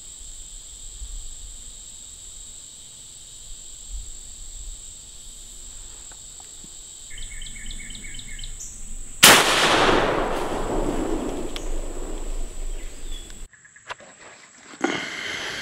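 A single shotgun shot about nine seconds in, its report echoing away over about four seconds. Just before it, a quick run of about six short high chirps.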